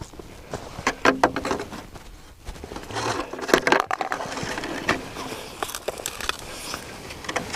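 A shovel knocking and scraping at ice and snow to pry frozen-in litter loose: a quick run of sharp strikes about a second in, then a stretch of rough scraping around three to four seconds in, with scattered knocks between.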